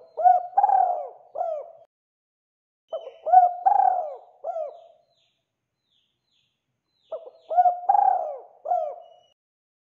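Spotted dove (tekukur) cooing: three phrases of several coos each, every phrase about two seconds long, with silent gaps of one to two seconds between them.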